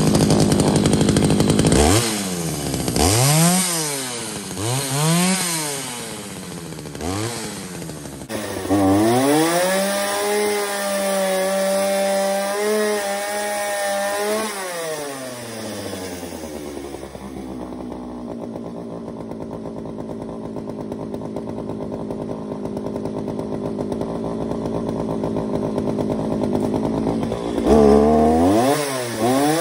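McCulloch Mac Cat 839 two-stroke chainsaw running just after starting. It is revved up and down in quick blips, held at high revs for several seconds, then drops back to a steady idle, and is revved up hard again near the end.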